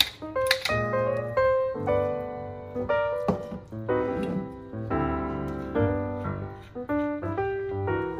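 Background piano music, note after note. In the first second, a few sharp clicks from a pepper grinder being twisted.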